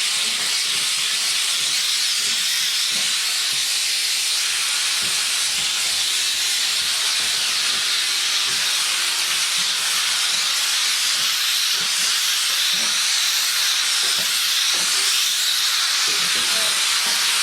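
Kärcher SC3 Premium steam cleaner jetting steam with a steady, loud hiss.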